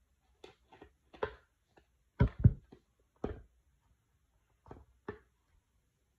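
Paper and cardboard handling noises from a new iPhone 13 Pro Max's retail box as its seal tabs are torn off and its lid is lifted off: scattered short rustles and taps, with two heavier thuds about two seconds in.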